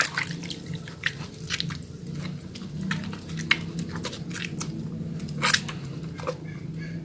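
Small wet bar of Holly soap being lathered in wet hands: irregular wet squishes and clicks, with a steady low hum underneath.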